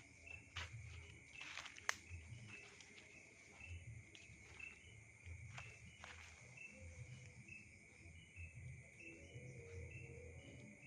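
Faint chorus of night insects: a steady high cricket trill with a short chirp repeating about twice a second. A few clicks, the sharpest about two seconds in.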